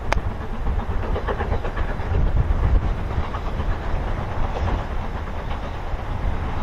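Distant steam locomotive approaching, heard faintly under heavy wind buffeting on the microphone. A single sharp click right at the start.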